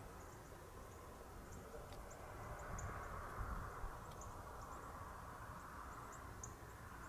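Quiet outdoor field ambience: low wind rumble and a steady hiss, with short high chirps of small birds calling a few times a second.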